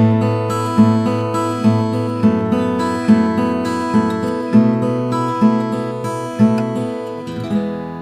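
Background music: an acoustic guitar strumming chords at a steady beat, about one strum every 0.8 seconds, ending on a chord that rings out near the end.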